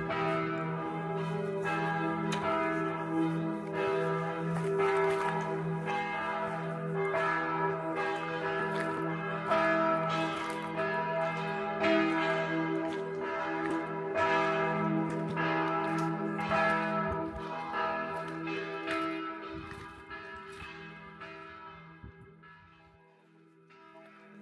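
Bells of a Catholic parish church pealing, calling to the five o'clock service: overlapping struck strokes over a steady hum. The ringing dies away over the last few seconds.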